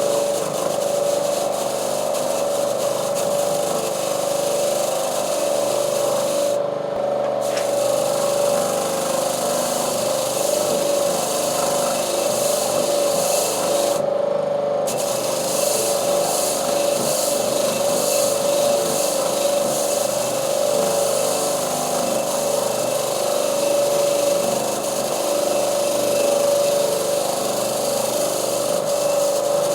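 A power tool running steadily with a constant whine under a hiss of rubbing or abrading; the hiss cuts out briefly about seven and again about fourteen seconds in.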